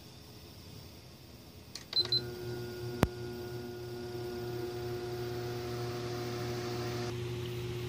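Electronic oscillating floor fan's control panel gives two short beeps as it is switched on, with a sharp click about a second later. Then the fan motor runs with a steady electrical hum, powered through a small 150-watt power inverter.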